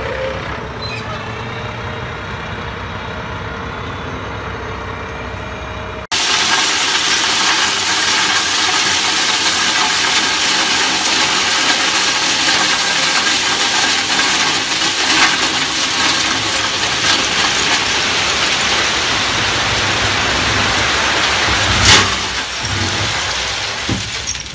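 Dump truck engine running as the bed is raised. About six seconds in, crushed stone pours out of the tipped bed in a loud steady rush of sliding gravel, with the engine still running under it and a single loud knock near the end.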